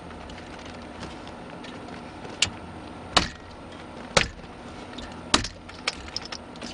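A handful of sharp, short clicks and knocks of hard plastic brackets and trim being pressed and handled into place, irregularly spaced, the loudest about three seconds in.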